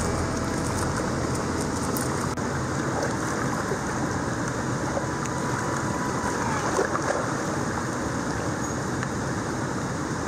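Steady rush of water churning out of a dam spillway into the river below.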